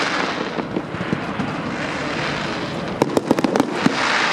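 Fireworks display going off: a quick run of sharp bangs and pops about three seconds in, over a continuous hiss that swells near the start and again near the end.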